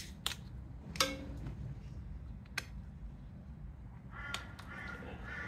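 Several sharp plastic clicks as zip ties are fastened around a motorcycle's wiring loom. From about four seconds in, an animal calls over and over in quick succession.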